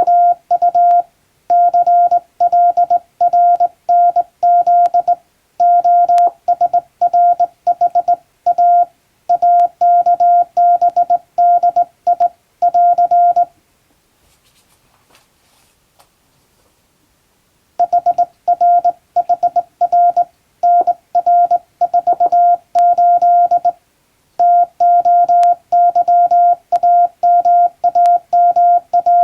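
English Morse code sent by hand on a straight key, heard as on-off beeps of one steady pitch in short dots and longer dashes with uneven hand-keyed spacing. The keying stops for about four seconds near the middle, then carries on.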